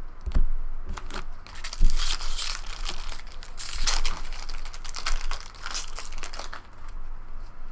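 Foil wrapper of a trading-card pack being torn open and crinkled, a dense crackling that is thickest from about two seconds in until about six and a half seconds.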